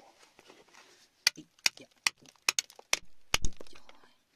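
A flat-tipped metal tool striking and scraping against wet, gravelly rock in a string of sharp, irregular clicks. They begin about a second in, and the loudest strike comes near the end.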